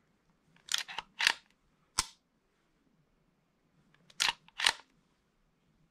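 A CZ TS2 9mm pistol's action is worked by hand while the trigger is dry-fired, making metallic clicks and clacks. There are two short clacks about a second in, a single sharp click at two seconds, and another pair of clacks about four seconds in.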